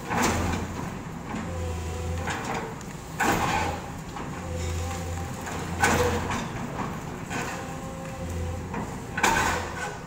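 Hydraulic excavator working, its engine and hydraulic pump whining as they rise and fall under load. Four loud crunching bursts come about every three seconds as concrete breaks away in the crusher jaws.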